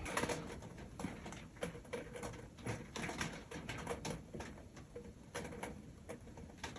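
A cat eating from its bowl: faint, irregular small clicks and smacks, several a second.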